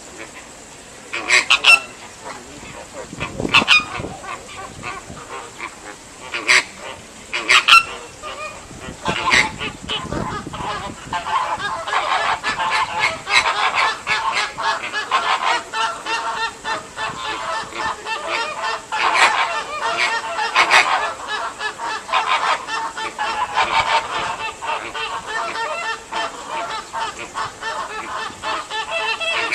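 A flock of American flamingos honking with goose-like calls: a few single loud honks at first, then from about ten seconds in, many birds calling over one another in a continuous chorus.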